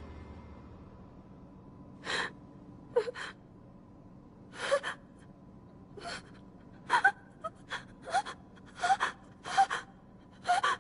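A young woman's voice gasping and whimpering in short, uneven, frightened breaths, starting about two seconds in. Music fades out at the start.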